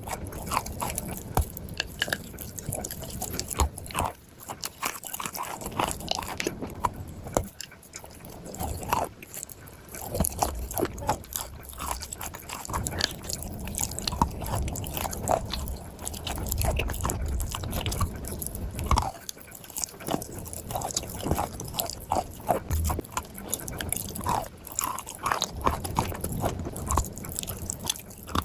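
A person biting and chewing chunks of dry clay: an irregular run of sharp, crisp crunches, one after another.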